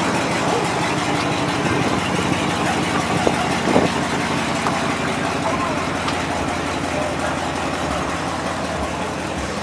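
Chevrolet Silverado pickup's engine idling steadily.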